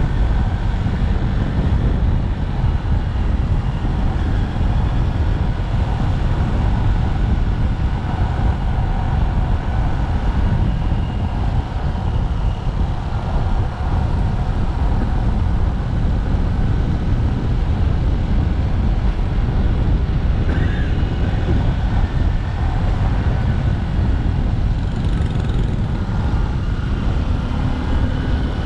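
Motorcycle engine running steadily as the bike rides along, heard from on board, under a heavy low rumble.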